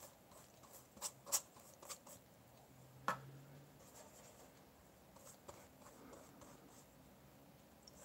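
Quiet watercolor brushwork: a brush scratching softly over textured watercolor paper, with a few sharp taps and clicks as the brush is worked at the palette, the sharpest about three seconds in.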